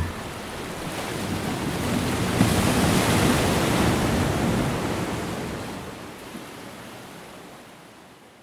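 Surf washing up on a sandy beach, swelling about three seconds in and then slowly fading away.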